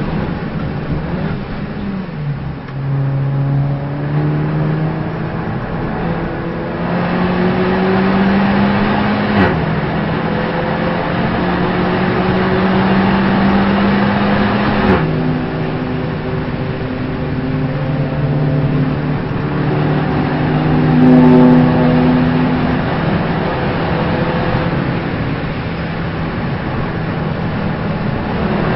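Race car engine pulling through the gears. Its pitch rises slowly and drops sharply at upshifts about nine and a half and fifteen seconds in. Before that it dips around two seconds in, and afterwards it holds a fairly steady note at constant speed.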